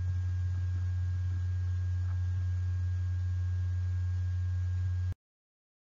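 Steady low electrical hum with a faint thin higher whine above it, which cuts off abruptly to silence about five seconds in.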